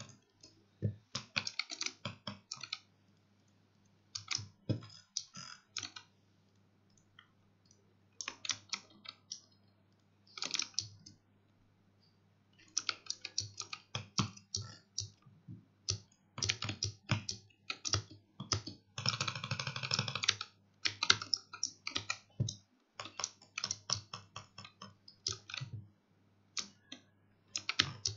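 Razer Huntsman Mini 60% optical-switch keyboard keys pressed in quick clusters of clicks, with pauses of about a second between them and a denser run of presses about two-thirds of the way in. A faint steady low hum sits underneath.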